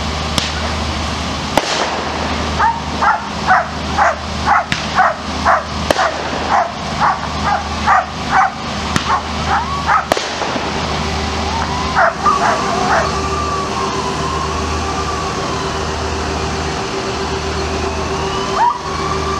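German shepherd police dogs barking in a rapid run of about two barks a second for several seconds, then a few more barks. A siren wails from about two-thirds of the way in, over a steady engine hum, with a few sharp cracks near the start and in the middle.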